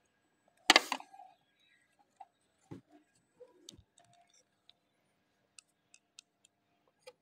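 Mechanical clicks from the needle threader mechanism of a Janome 8200 sewing machine being worked by hand: a loud clatter of clicks just under a second in, then scattered faint ticks and small clicks.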